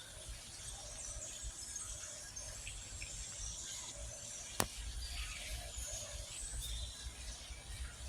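Small birds chirping and twittering in many short, high notes over a low background rumble, with one sharp click about halfway through.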